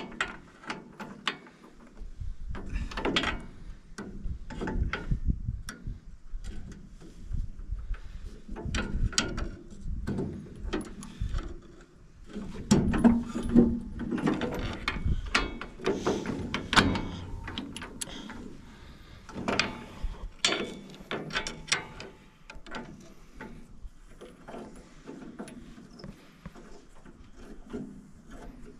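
Hand tools working on the metal knife guards and hold-downs of a combine header: irregular clanks, knocks and clicks of metal on metal, busiest and loudest in the middle.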